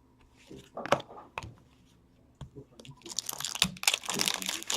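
A foil trading-card pack wrapper being torn open and crinkled: a few sharp crackles about a second in, then a dense stretch of crinkling over the last two seconds.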